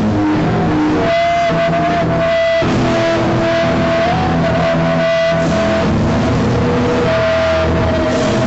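Loud rock music with electric guitar, holding long sustained notes over a steady band backing.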